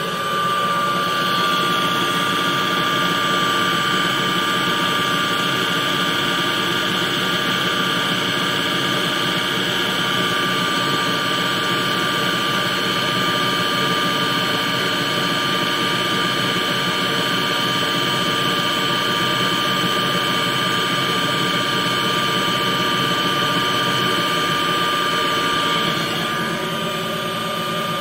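Home-built CNC lathe spindle running at a steady speed with a high, even whine, while an end mill held in the chuck cuts a slot in an aluminium tool-holder block. The sound gets slightly louder about a second in and eases a little near the end.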